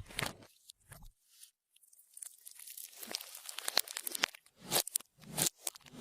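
Clear slime being worked by hand as makeup and glitter are mixed in: sticky crackling and popping, quiet for a second or so near the start, then denser with a few louder squishes toward the end.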